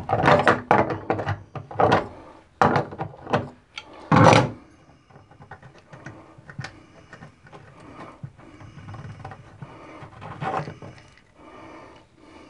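Tongue-and-groove pliers gripping and turning a tub drain stopper, making a series of sharp metal clicks and scrapes. The loudest comes about four seconds in. After it, fainter scrapes and ticks follow as the stopper is unscrewed by hand.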